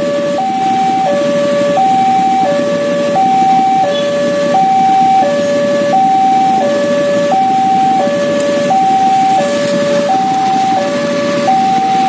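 Railway level-crossing warning alarm sounding: an electronic two-tone signal alternating high and low, each tone held about two-thirds of a second, warning that a train is approaching and the barriers are down.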